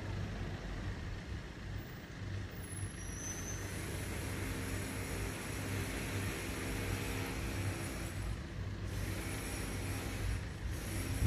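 A motor vehicle engine running out of sight: a steady low hum, with a pitched drone that swells in the middle and fades again.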